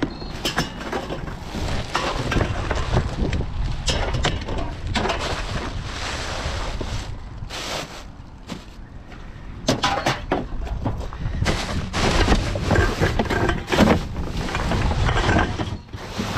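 Wind buffeting the microphone, with irregular knocks, clatter and rustling as rubbish is handled in and around a wheelie bin.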